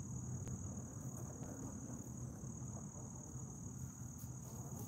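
Insects trilling in one continuous high-pitched tone, over a faint low background rumble.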